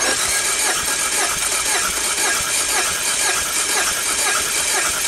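Peugeot 1.6 L TU5JP4 petrol four-cylinder engine turned over on its starter motor with an even, rhythmic cranking. It is being cranked for a compression test of cylinder two, which builds to a healthy 16 kg/cm².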